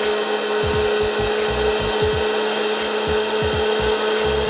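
Uncanny Brands Captain America hot-air popcorn popper running: its fan motor blows a steady rush of hot air with a constant hum. The kernels are still heating, and none are popping yet.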